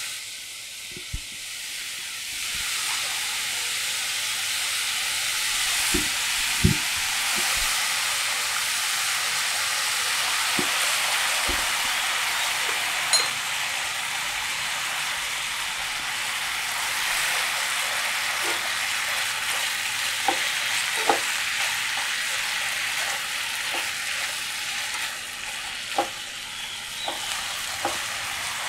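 Sliced pork sizzling as it fries in oil in a pan, the sizzle swelling about two seconds in. A plastic spatula stirs the meat and now and then knocks against the pan.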